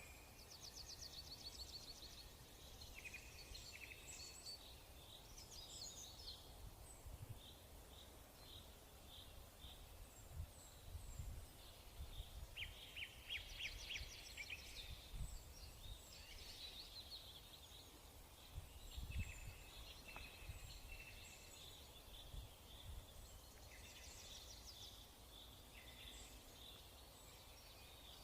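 Faint birds chirping and trilling again and again, over a low background hum, with a few soft low thuds.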